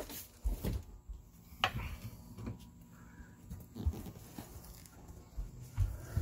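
Scattered knocks, thumps and footfalls of someone moving about a boat's deck and seats while carrying a handheld camera, with one sharper click about a second and a half in.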